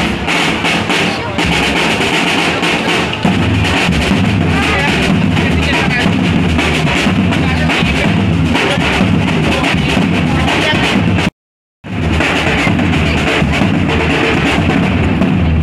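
Street drum band pounding out a loud, continuous rhythm on large bass and snare drums, with crowd voices underneath. The sound cuts out for about half a second roughly eleven seconds in, then the drumming picks up again.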